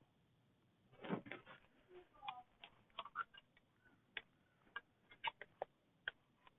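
Faint, irregular sharp pops and crackles from the open fire under a grill as chicken cooks on it.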